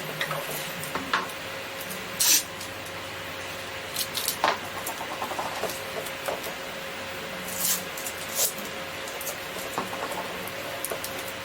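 Masking tape being worked onto a 3D-printed plastic blade: several short rasping pulls and rustles, with small clicks and taps between them, over a faint steady hum.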